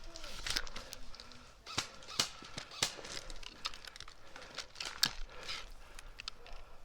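Scattered sharp snaps of airsoft guns firing across the field, single shots and short strings at varying distances, with a faint drawn-out call from a distant player near the start.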